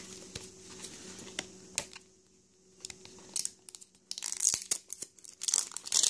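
Hands handling a plastic L.O.L. Surprise ball: faint clicks and taps of hard plastic, then from about four seconds in a louder crinkly rustling of plastic as a layer is unwrapped.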